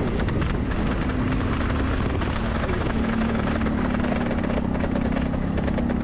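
Motor scooter running steadily at riding speed, its engine a steady hum, under low rumbling wind buffeting on the microphone.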